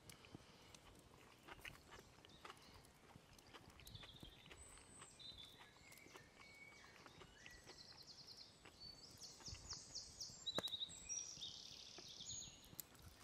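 Near silence with faint woodland birdsong: short high notes and trills from about four seconds in, and a few soft clicks.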